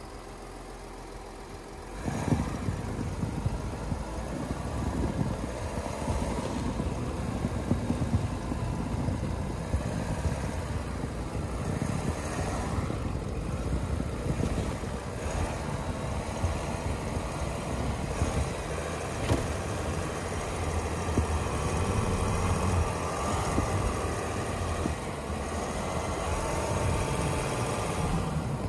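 Volkswagen Amarok V6 4Motion pickup driving slowly through deep snow on Kumho WinterCraft Ice WS31 winter tyres: a steady engine rumble mixed with the crackle of the tyres pushing through the snow, getting louder about two seconds in.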